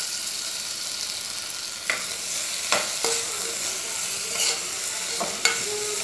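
Diced potato and onion sizzling in hot oil in an aluminium pressure cooker. From about two seconds in, a spoon stirs them, knocking against the pot about six times.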